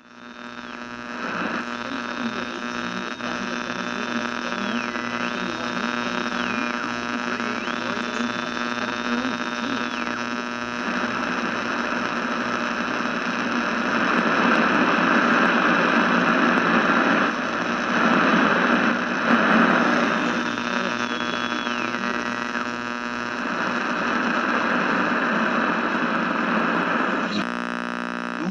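Din of a large crowd heard through an old, noisy recording with a steady electrical hum. It swells about halfway through. High whistling tones slide up and down several times near the start and again later.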